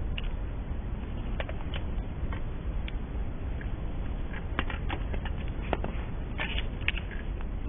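Outdoor ambience: a steady low rumble of wind buffeting the microphone, with scattered light clicks and taps, clustered from about halfway through.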